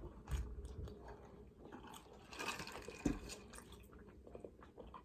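A person biting into and chewing a glazed donut and fried chicken tender sandwich close to the microphone, with a couple of firmer bites and many small mouth clicks.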